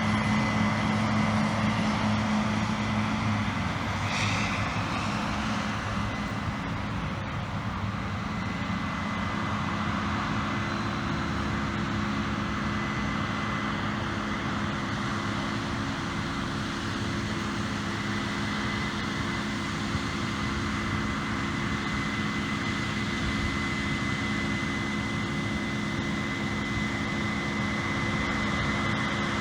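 Harvest machinery, a combine or tractor, running steadily in the field: a continuous engine drone with a steady high whine over it, the engine note shifting slightly a few seconds in.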